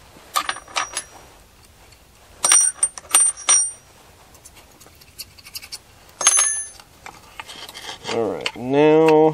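Small steel parts of a chainsaw's chain brake assembly clicking and clinking as they are handled and fitted, with a few sharp clinks that ring briefly, in three short groups. A voice sounds near the end.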